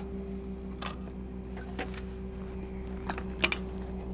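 Steady low mechanical hum from a truck-mounted pump hoist rig running, with a few sharp clicks and knocks as a submersible pump on its drop pipe is lowered into a well; the sharpest knock comes about three and a half seconds in.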